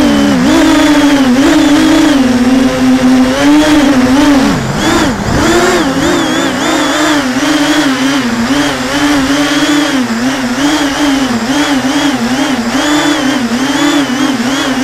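Motors and propellers of a low-flying remote-controlled drone, heard close up from its onboard camera: a loud, steady whine whose pitch keeps wavering up and down with the throttle. Around five seconds in it drops sharply and climbs back.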